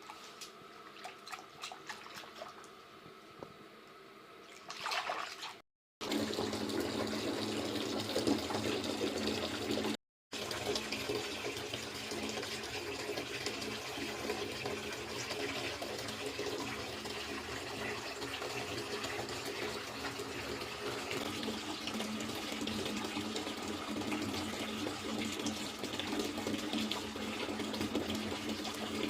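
Water running from a tap, a steady rush that starts loud about five seconds in after a quieter opening. It cuts out completely twice for a moment.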